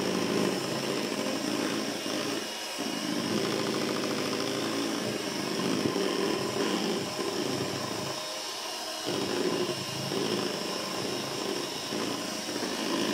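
Electric hand mixer running steadily, its beaters whipping chantilly cream until it doubles in volume and holds stiff swirls. The lower sound thins for a moment about a third of the way in and again for about a second just after the middle, as the beaters shift in the cream.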